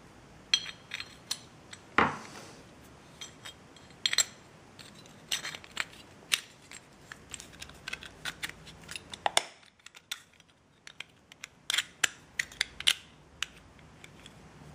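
Metal parts of an Audi 2.5 TDI accessory belt tensioner (059145283A) clicking and clinking as they are handled and fitted together by hand: a string of sharp taps and knocks, the loudest about two seconds in, with a quiet stretch around ten seconds in.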